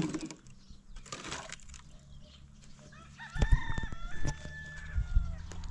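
A rooster crows once, a single long call starting about three seconds in, over the knocks and thumps of firewood logs being handled at a woodpile; the loudest thumps come as the crow begins and about a second after it.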